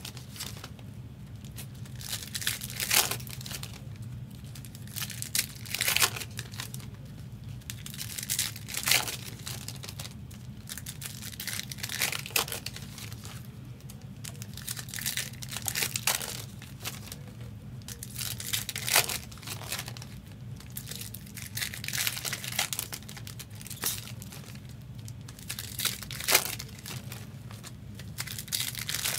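Foil wrappers of 2023 Upper Deck Marvel Platinum card packs being torn open and crinkled by hand. The sound is a string of separate rustles, with a louder tear about every three seconds.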